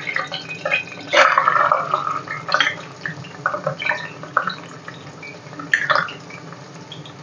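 Chopped onion dropped into hot oil in a steel pot, setting off a burst of sizzling about a second in, then a steady spitting crackle of frying. A second burst comes near the end as ginger-garlic paste goes into the oil.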